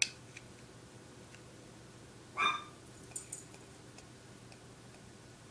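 A plastic eyeshadow compact snaps open with a sharp click. About two and a half seconds in comes one short, high-pitched yelp, followed by a few faint light clicks from handling the compact.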